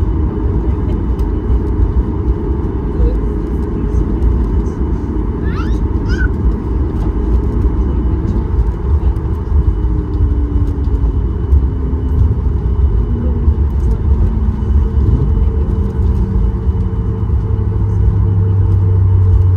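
Cabin noise of a Boeing 737 MAX 8 rolling on the ground: a steady low rumble from its CFM LEAP-1B engines and the wheels on the pavement. A tone slowly falls in pitch through the second half, and there are two brief rising squeaks about six seconds in.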